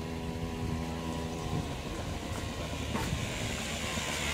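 Vehicle engine idling with a steady hum that fades out about a second and a half in, then a rising hiss of traffic near the end.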